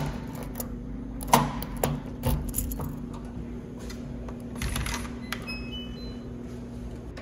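Keys on a keychain rattling and clicking, followed by clicks at a Samsung digital door lock. The lock then plays a short run of quick electronic beeps at different pitches, over a steady low hum.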